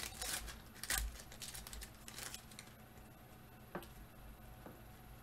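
Foil trading-card pack torn open, its wrapper crinkling for about two and a half seconds, then a few soft clicks as the cards are handled and sorted.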